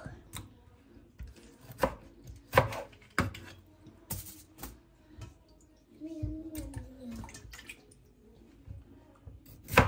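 Irregular knocks of a kitchen knife and utensils on a cutting board during vegetable prep, the loudest right at the end.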